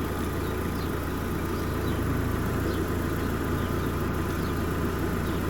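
2017 Fiat 500's engine idling steadily, running the air conditioning while the system is recharged with refrigerant.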